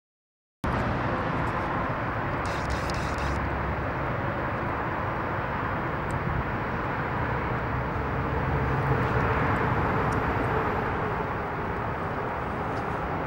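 Steady outdoor ambient rumble picked up by the camera's microphone, with no voices or music. It starts suddenly just under a second in and cuts off suddenly at the end.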